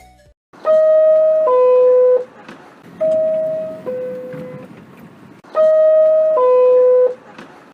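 New York City subway car door chime: a two-note descending ding-dong sounding three times, the middle one fainter. It is the signal that the doors are about to close.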